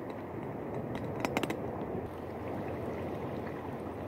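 Liquid being poured into a container, over a steady background hiss, with a few short clicks a little over a second in.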